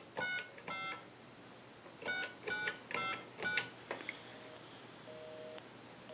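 Touch-tone keypad dialing: a quick run of three DTMF key tones, a short pause, then four more. A click follows near 4 s, then a busy signal begins, a faint two-tone beep about once a second, showing the called line is engaged.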